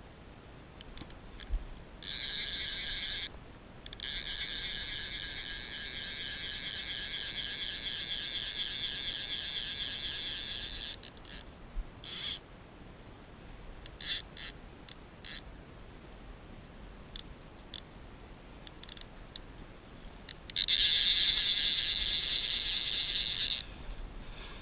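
Small fly reel's click-and-pawl ratchet buzzing in spells while a luderick is played on the fly rod: a short buzz about two seconds in, a long one of about seven seconds, and another near the end, with single clicks in between.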